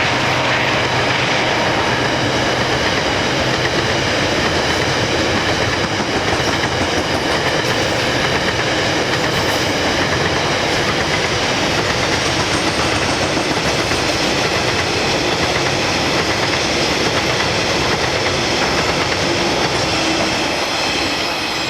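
A train rolling past: a steady rumble of wheels on the rails with high, steady squealing tones. The locomotive's diesel engine drone fades out over the first few seconds.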